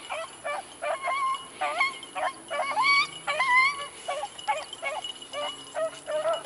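Beagle hounds baying on a rabbit's trail: a string of short, pitched bays, about two a second, each bending in pitch.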